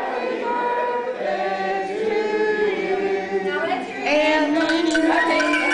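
A choir singing, with long held notes.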